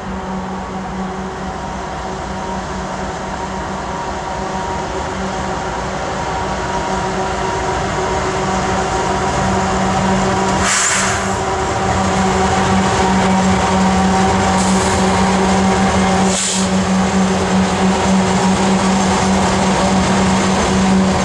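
Two Canadian Pacific GE diesel locomotives, an ES44AC and an AC4400CW, passing with a steady engine hum that grows louder as they draw near. The freight cars behind them then roll by, with a couple of short clicks partway through.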